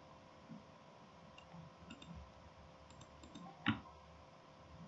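A single sharp computer mouse click about three-quarters of the way in, with a few fainter ticks before it, over a faint steady electrical hum.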